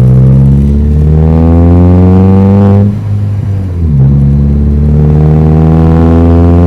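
Chevrolet Astra 2.0 four-cylinder engine with no muffler, just the bare pipe, pulling hard under acceleration. Its pitch climbs steadily, drops at a gear change about three seconds in, then climbs again.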